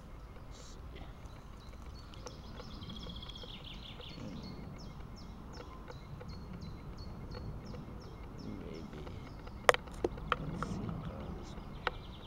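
Woodland background with a high chirp repeated about three times a second through the middle, and a few sharp clicks near the end, the loudest about ten seconds in, from handling the kydex knife sheath.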